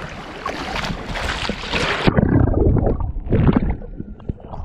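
Water splashing as a person wades through shallow water; about two seconds in, the microphone goes under the surface and the sound turns muffled, with bubbling and gurgling underwater.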